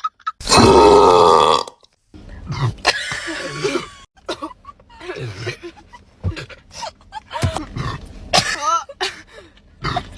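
A run of girls' burps, edited back to back: a loud, long belch of over a second near the start, then several shorter, quieter burps.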